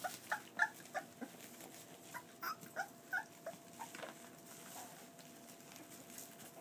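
Boxer puppies yipping and whining in short, high-pitched squeaks as they play-fight, the yips thinning out after about five seconds.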